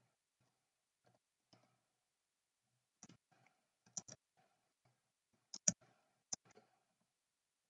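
Faint computer keyboard keystrokes: scattered single clicks at uneven intervals, with a few louder key presses in the second half.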